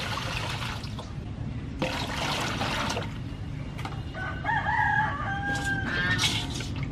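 A rooster crows about four seconds in, one drawn-out call lasting about two seconds. Before it, water is poured and splashed in two short spells.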